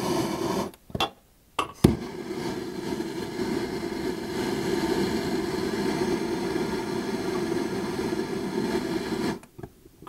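Handheld gas torch flame hissing steadily while it is held to diesel and used oil to light a DIY waste-oil burner. About a second in the flame goes out and a few clicks of the trigger igniter relight it, the last a sharp loud click. The torch is shut off near the end.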